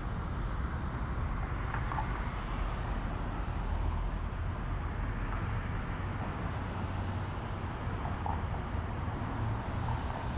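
City street traffic: a steady low rumble of passing vehicles, with a few faint brief squeaks.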